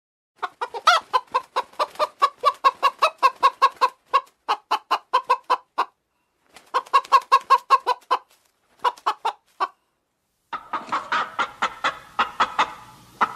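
Domestic hens clucking in rapid runs of short calls, about four or five a second, broken by two brief pauses. From about ten seconds in the clucking overlaps more densely over a background hiss.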